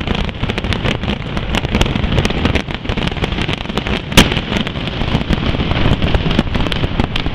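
Fireworks going off: a dense run of crackles and bangs over a steady rumble, with one sharp, loud bang about four seconds in.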